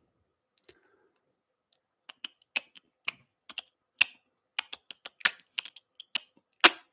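Typing on a computer keyboard: irregular keystroke clicks, several a second, starting about two seconds in.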